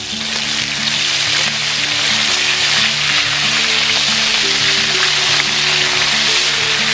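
Food pieces frying in hot oil in a wok, a steady sizzling, as a spatula turns them. Background music with held, changing notes plays underneath.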